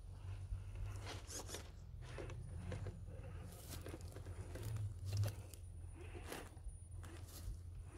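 Element RC Enduro Ecto scale crawler grinding over rough sandstone: irregular scratches and crunches as its tyres and chassis scrape and slip on the rock, over a low steady hum.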